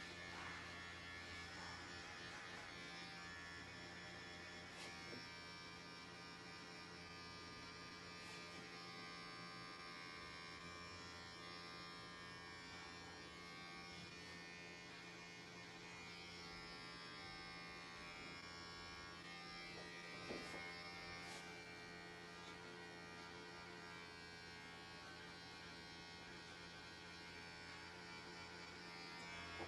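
Electric hair clippers running with a steady buzz while cutting short hair.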